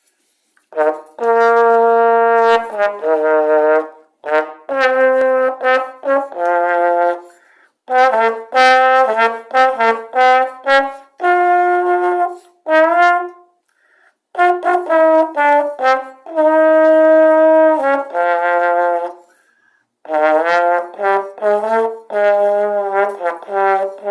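Vintage American Wurlitzer professional-model trombone being played. It plays a string of short melodic phrases of moving and held notes, with brief pauses between them.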